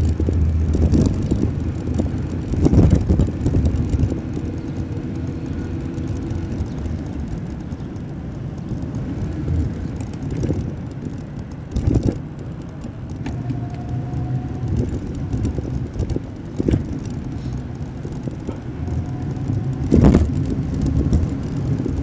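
Electric bicycle riding along a city street: a steady low rumble of road and wind noise, broken by a few sharp knocks and rattles over bumps.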